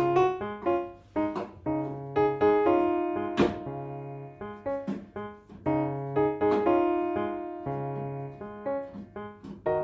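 Solo piano music: chords and melody notes, each struck and ringing away, with a brief knock about three and a half seconds in.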